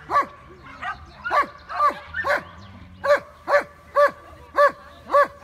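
A dog barking repeatedly, about nine sharp, fairly high-pitched barks at roughly two a second.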